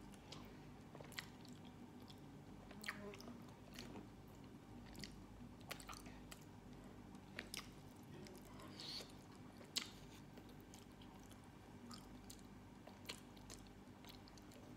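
Faint close-up mouth sounds of a person chewing a piece of boiled sweet potato: irregular wet lip smacks and tongue clicks.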